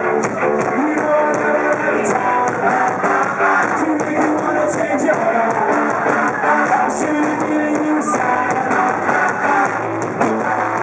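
Rock band playing live, with electric guitar, drums and some singing, through a poor, distorted audience recording.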